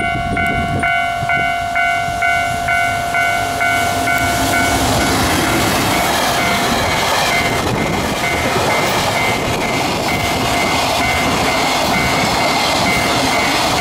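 An EF210 electric locomotive hauling a container freight train passes close by; the rushing rumble of the locomotive and wagons swells about four seconds in and then holds steady as the wagons roll past. Throughout, a pitched ringing tone pulses about twice a second.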